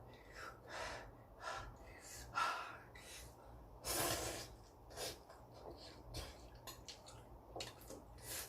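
A man breathing hard, sniffling and gasping in short noisy puffs, the loudest about four seconds in: his reaction to the burning heat of extremely spicy ramen, with a runny nose and watering eyes.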